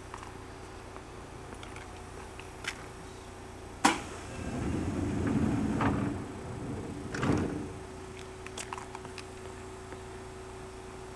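Seibu 2000-series electric train's sliding doors closing: a sharp click about four seconds in, a couple of seconds of rumbling as the doors run, then a thud as they shut. A steady hum sits underneath.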